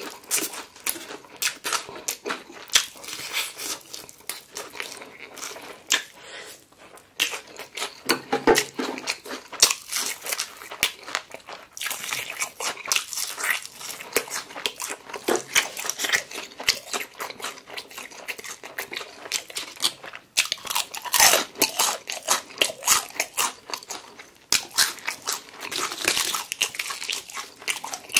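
Close-miked eating of crispy battered fried chicken: the coating crunches and crackles in dense, irregular bites, with chewing between them.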